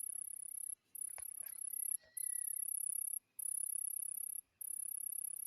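High-pitched electronic chirping from the video doorbell setup, in bursts of about a second with short, regular breaks. There is a single click about a second in.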